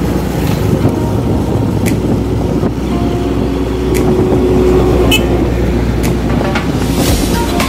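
Honda XR150 motorcycle's single-cylinder four-stroke engine running steadily while riding, heard from the rider's seat.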